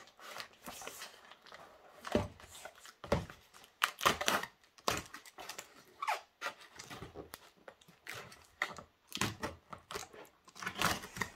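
A cardboard shipping box being cut and torn open with a box cutter: an irregular string of rips, scrapes and crinkles as tape and cardboard flaps give way.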